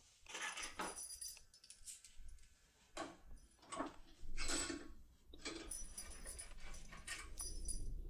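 Light metallic clicks, scrapes and jingles of a Topolino lock decoder being handled at a Cisa Asix P8 lock cylinder, coming in a string of short bursts.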